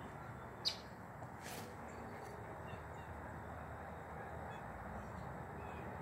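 Steady outdoor background noise, with a short high chirp under a second in and a brief scuffing noise about a second and a half in.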